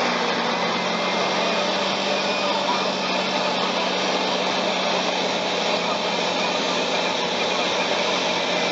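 Caterpillar D6T bulldozer's diesel engine running steadily under load as it pushes mud with its blade: an even drone with a constant hum underneath.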